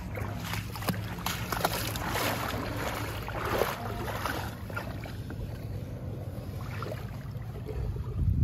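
Sea-Doo jet ski engine idling as a steady low hum, with water splashing against the hull and wind on the microphone; a louder low thump comes near the end.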